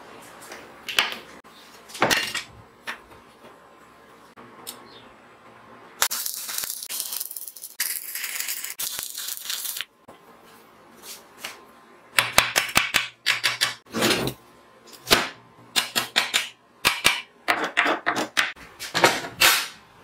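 Stick welding on 5 mm mild steel plate: an arc crackling and hissing steadily for about four seconds in the middle, with short sharp cracks before it. Later come several bursts of rapid clicking and tapping on the steel.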